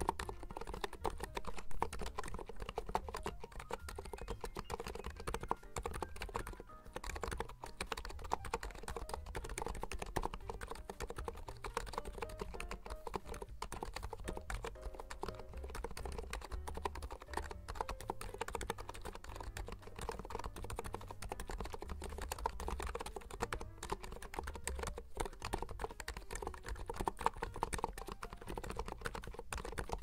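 Continuous typing on a NIZ Atom68 electro-capacitive keyboard with light 35 g switches: a dense, unbroken run of keystrokes.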